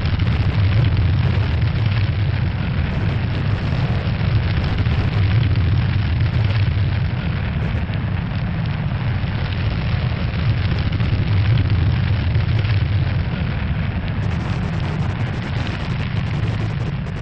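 Steady low rumble with a rushing hiss over it, the sound effect for a spacecraft's heat shield burning through the Martian atmosphere during entry; it eases off slightly near the end.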